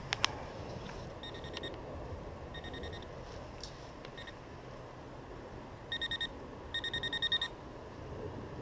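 Handheld metal-detecting pinpointer probe beeping in quick, even-pitched pulses as it is worked through the soil of a dug hole over a target: short runs about one and three seconds in, and two longer runs near the end. A couple of sharp clicks right at the start.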